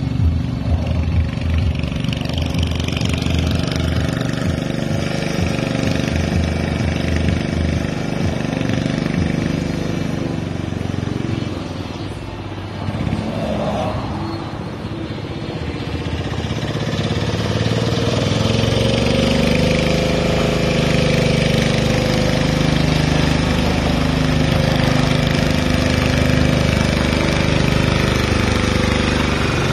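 Lister diesel engine of a Power Pony garden tractor running steadily. Its pitch wavers up and down in the second half as it gets somewhat louder, coming closer.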